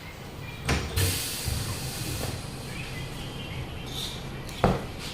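Sharp metal knocks and clanks, with a short hiss of air about a second in, lasting over a second.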